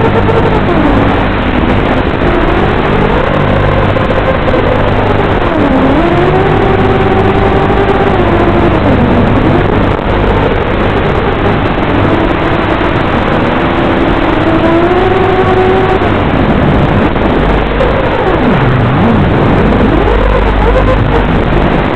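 FPV quadcopter's electric motors whining, the pitch rising and falling with the throttle. Near the end the pitch drops sharply and climbs back.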